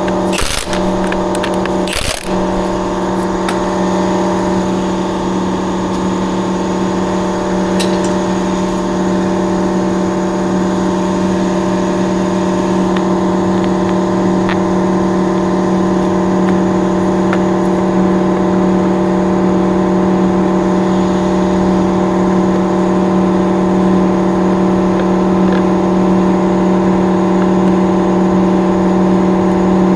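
A machine running steadily with a constant, even-pitched hum, with a few sharp clicks in the first couple of seconds.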